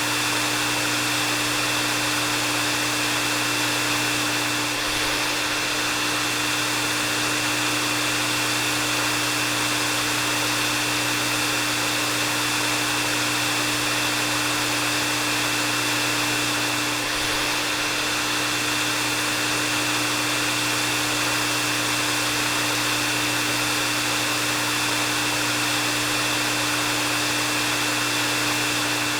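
Hair dryer running steadily: an even rush of blown air with a low motor hum and a thin, steady high whine.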